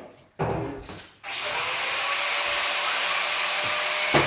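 Handheld power tool grinding stainless steel to prepare a weld seam: a steady, hissing abrasive noise that starts abruptly about a second in, with a sharp knock near the end.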